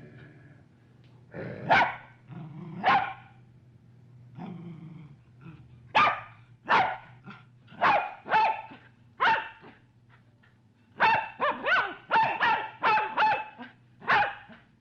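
Medium-sized dog barking in single and paired barks with short pauses, then a quick run of barks near the end. A faint steady low hum lies beneath.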